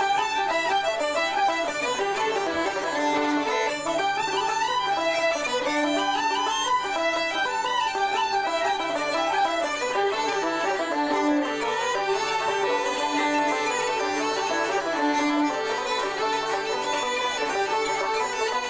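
Uilleann pipes playing a fast Irish traditional tune: a quick, ornamented chanter melody over a steady low drone.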